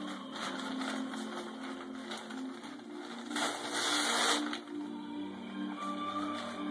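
A folded newspaper torn in half by hand: one loud tearing rip about three and a half seconds in, lasting about a second, with lighter paper rustling before it. Background music with held notes plays throughout.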